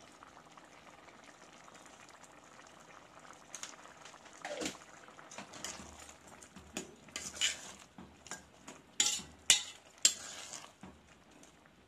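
Metal ladle stirring a thick simmering lentil curry in a steel pot: a faint bubbling at first, then from about four seconds in, repeated scrapes and clinks of the ladle against the pot, loudest near the end.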